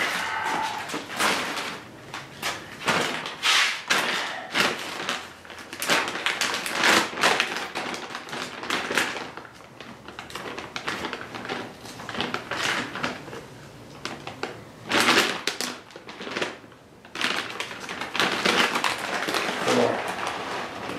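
Irregular rustling and crinkling of bags being handled: a large plastic bag of wood shavings, then a second, printed bag being opened.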